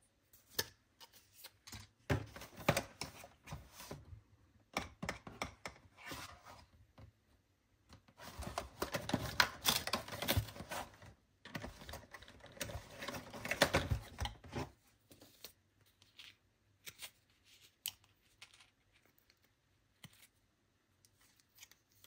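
Paper and cardboard packaging handled up close: rustling and crinkling of card in several spells, the longest in the middle, with scattered clicks and taps that thin out over the last few seconds.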